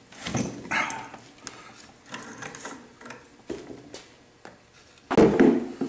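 The crankshaft of a freshly assembled Ingersoll Rand 242 air compressor being turned over by hand with pliers. The pump's internals give bursts of mechanical clicking and clatter as it turns, with the loudest clunk about five seconds in.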